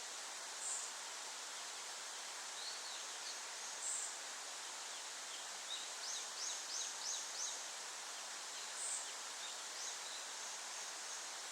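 Wild songbirds calling over a steady background rush: a few short high chirps scattered through, and about six seconds in a quick run of five descending notes.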